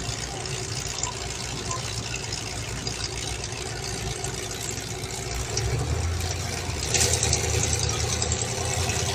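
Vehicle engines idling steadily. About halfway through, a deeper engine note comes up louder.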